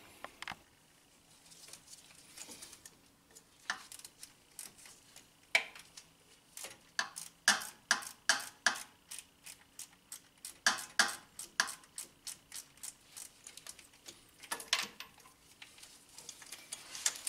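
A 3/8-inch ratchet with a 19 mm socket clicking as it works the engine coolant temperature sensor loose. The clicks come in irregular runs of several a second, densest about seven to nine seconds in and again around eleven seconds.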